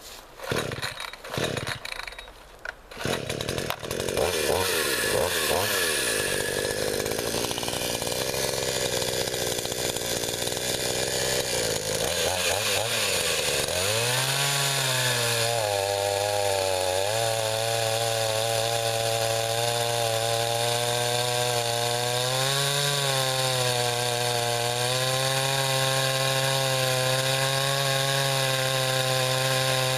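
Gas chainsaw cutting through a pecan log. A few short sputters in the first three seconds, then the engine runs continuously. Its pitch sags and climbs back about halfway through, and wavers as the chain works through the wood.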